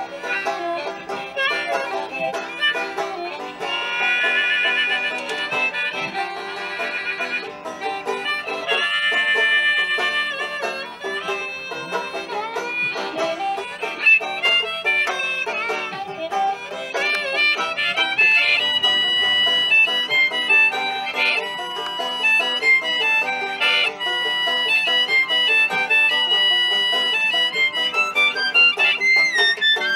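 Banjo and harmonica playing a tune together, the harmonica's held notes over the banjo's picking.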